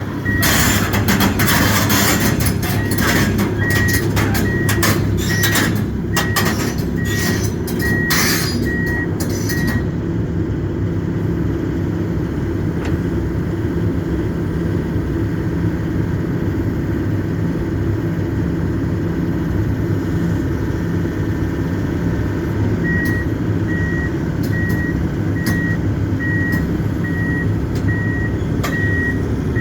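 Kobelco excavator's diesel engine running steadily while its travel alarm beeps in an even, high-pitched pulse, for the first ten seconds and again near the end. Repeated metal clanks and knocks come over the first ten seconds, then stop.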